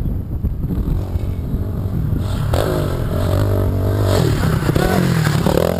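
Honda CRF450R dirt bike's single-cylinder four-stroke engine coming closer, its revs rising and falling as the rider works the throttle. The engine becomes clear about two and a half seconds in, over a low rumble of wind on the microphone.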